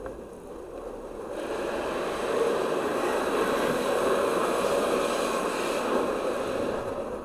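High-pressure water jets of an underbody car-wash sprayer blasting the car's underside, heard from inside the cabin as a steady rushing hiss. The hiss swells about a second in and eases near the end.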